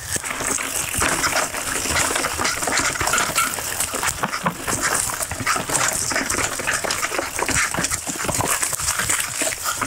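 Mountain bike riding over a dirt trail covered in dry leaves: the knobby tyres crackle through the leaves and the bike rattles over the bumps, a dense run of small crackles and knocks.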